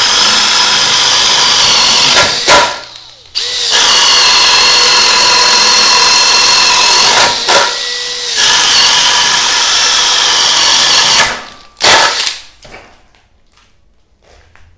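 Makita XGT GPH01 40-volt cordless hammer drill in drill mode, boring holes through a wooden beam with a 1¼-inch spade bit. Its motor whines at a steady pitch under the heavy load in three long runs, each cut off abruptly and followed by a short blip of the trigger.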